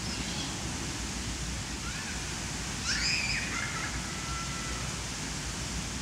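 Steady rushing of sea breeze and surf, with a brief high rising chirp about three seconds in.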